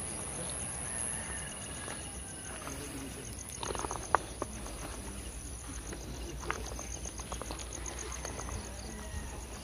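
Night insects calling together: a steady high trill with a fast pulsing chirp of about five beats a second beneath it. A few faint clicks and rustles come through around the middle.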